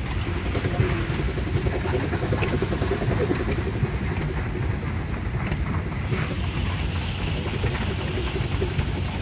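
Steam traction engines running: a steady low rumble.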